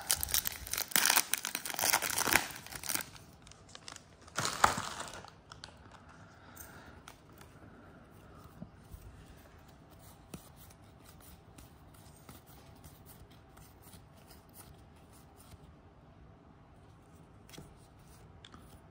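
A plastic trading-card pack wrapper being torn open and crinkled in short bursts over the first five seconds. Then come faint scattered ticks of cards being slid and thumbed through by hand.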